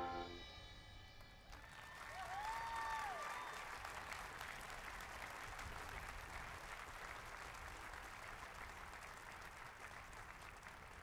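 A band's held brass chord cuts off in the first second, then a small audience applauds faintly for the rest of the time, with a brief call from the crowd rising and falling in pitch about two seconds in.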